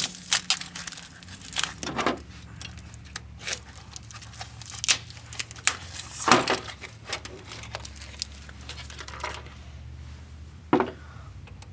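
Plastic wrapping and styrofoam packing being pulled off a massage chair backrest and crumpled, in irregular crinkles, rustles and sharp crackles.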